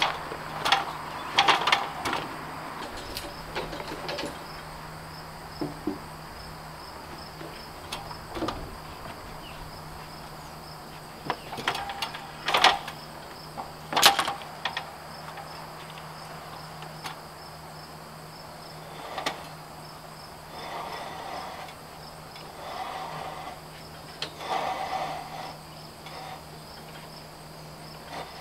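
Scattered knocks and clunks as a heavy rough-sawn timber beam is lifted and shifted against the posts and the metal scaffolding. The loudest knock comes about two thirds of the way through.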